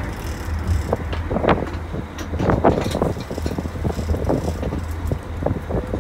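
Sport-fishing boat's engine running with a steady low drone, under irregular rushes of wind and churning water from the wake.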